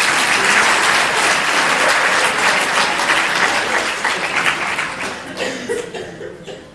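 Theatre audience applauding, a dense spell of clapping that thins out and dies away near the end.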